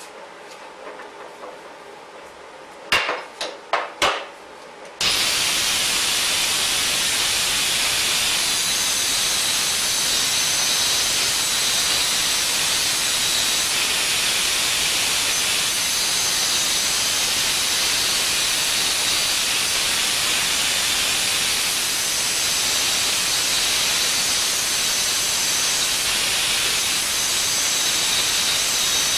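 A few sharp knocks, then about five seconds in a plasma cutter starts cutting steel with a steady hiss of air that goes on unbroken.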